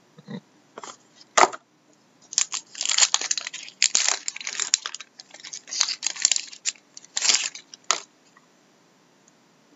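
A foil trading-card pack wrapper being torn open by hand and crinkled. A sharp click comes about a second and a half in, then a run of crackling rips lasts about six seconds and stops.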